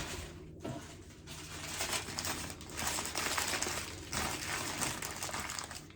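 Packing paper rustling and crinkling as it is handled and unwrapped, in a few stretches with short pauses between.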